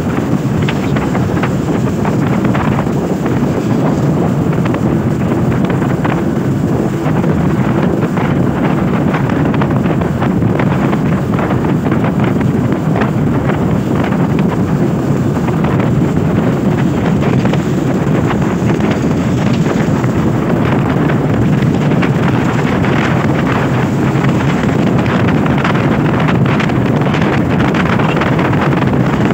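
Steady wind noise on the microphone of a moving motorcycle, with engine and tyre noise on a wet road underneath.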